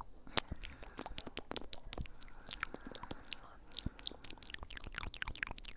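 Close-miked ASMR trigger sounds: a dense, irregular run of crisp clicks and crackles.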